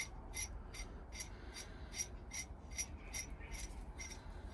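Light metallic clicks, evenly spaced at about two a second, from bolts and a harmonic balancer puller being fitted to a steering wheel.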